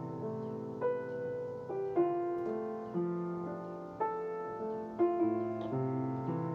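Solo piano playing a slow, tender melody over sustained chords and a bass line, with new notes struck about once a second.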